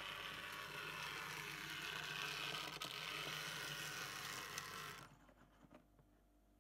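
N-scale model train running: a steady whir and rattle of the locomotive's motor, gears and wheels on the track, not quite quiet because some locomotives still need new wheels and motor adjustment. It cuts off abruptly about five seconds in.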